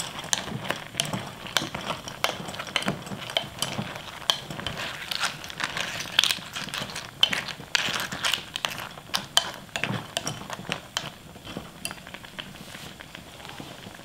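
A wooden spoon stirring Manila clams in boiling soup in a glass pot. The clam shells knock and click against each other and the pot over the bubbling, and the clicks thin out about eleven seconds in.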